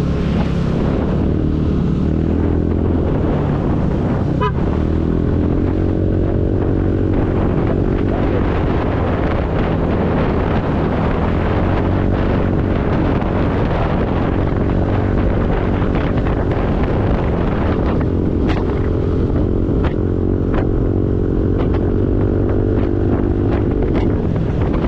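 Motor scooter engine running under the rider as it pulls away and cruises, its pitch rising several times as it speeds up, with wind buffeting the microphone.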